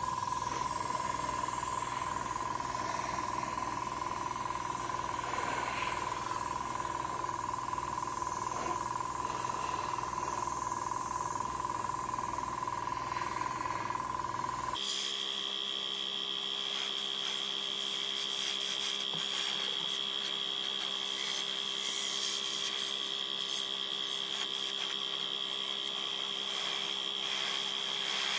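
Airbrush compressor running with a steady whine and hiss. About halfway through, the sound changes abruptly to a higher-pitched whine.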